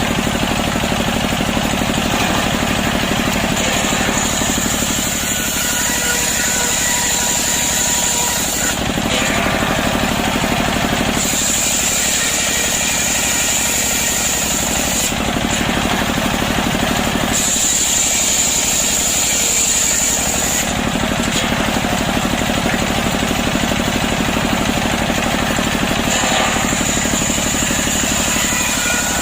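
Chainsaw running steadily at high speed as it rips lengthwise through a freshly felled, still-wet breadfruit log, with a high whine that comes and goes every few seconds.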